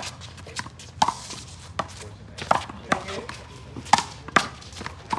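A one-wall handball rally: a small rubber ball slapped by hand and smacking off the wall and court, about eight sharp hits at irregular intervals of half a second to a second.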